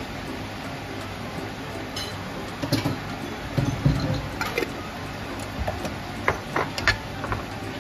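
Sliced beef sizzling steadily in a non-stick frying pan, with scattered clinks and knocks as a glass jar of black pepper is shaken over it and the spatula taps the pan.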